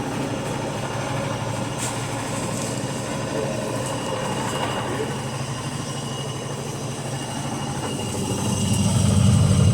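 Electrolux LTP15 top-load washing machine running with a steady mechanical drone. About eight and a half seconds in, the low hum grows louder with a fast pulsing.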